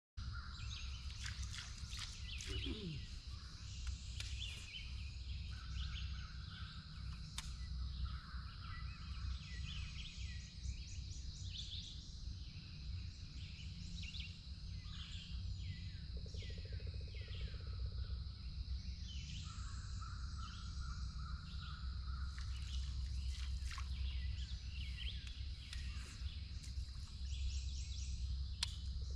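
Waterside morning ambience: many birds chirping and calling over a steady high insect drone, with a low rumble underneath.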